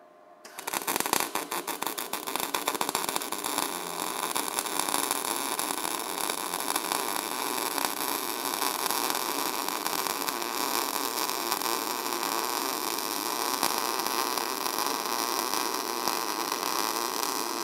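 MIG welding arc from an Everlast MIG140 running a fillet-weld bead: after a few uneven crackles as the arc strikes about half a second in, a steady crackling hiss that holds for about 17 seconds and cuts off right at the end.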